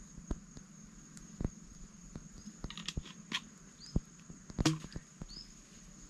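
Scattered sharp cracks and crunches of cooked stream crab shell being bitten and chewed, the loudest a little before five seconds in. Behind them runs a steady high whine, with a few short rising chirps.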